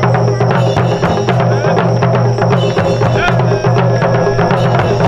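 Japanese taiko drum ensemble playing, many drums struck in quick, unbroken strokes.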